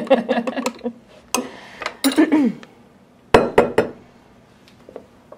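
Metal teaspoon stirring in a glass mug, clinking rapidly against the glass for about the first second. A few single clinks follow, then three sharp clacks a little after three seconds in as the spoon is tapped and set down on the counter.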